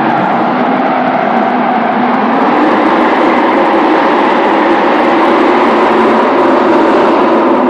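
BMW E39 540's V8 engine running hard through a drift, its revs wavering, mixed with a continuous rush of tyre noise. The sound echoes in a large enclosed hall.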